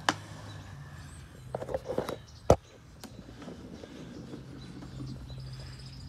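Hands handling a plastic capsule coffee machine: a click at the start, a few light knocks and rustles around two seconds in, then one sharp click about two and a half seconds in, over a low steady hum.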